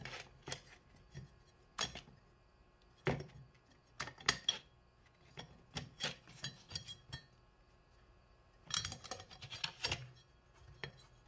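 Honda Goldwing clutch plates, metal steels and friction fibers, handled and shuffled apart by hand: scattered metallic clinks and short scrapes, with a quick flurry of them about nine seconds in.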